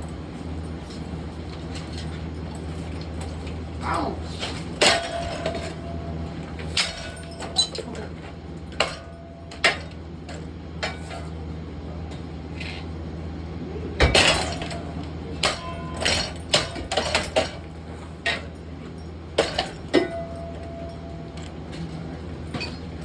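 A rake repeatedly hitting a light fixture: about fifteen sharp clanking blows at uneven intervals, several followed by brief metallic ringing, with glass clinking and breaking. The heaviest hit comes about two-thirds of the way through.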